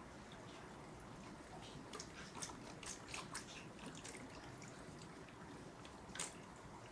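Faint drips and small splashes of water from an aquarium siphon hose draining tank water for a water change: a cluster of drips about two to three seconds in and a louder one near the end.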